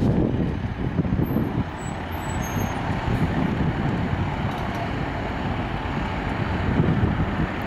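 Steady road traffic noise: cars and trucks running and passing on the road.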